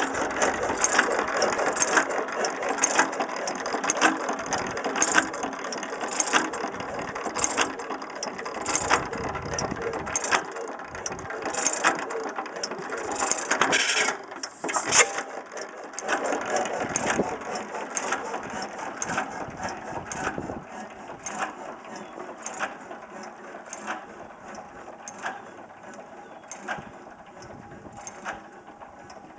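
A 12 hp Domestic Type A antique gas engine running, with a steady clatter of its valve gear and linkage. A sharp knock comes about once a second. The sound grows fainter over the last several seconds.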